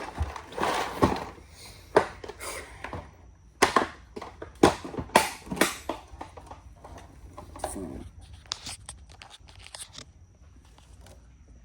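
Handling of a screw and parts organizer from a toolbox: a string of sharp clicks and knocks, the loudest in the middle, then lighter clicking and rattling near the end.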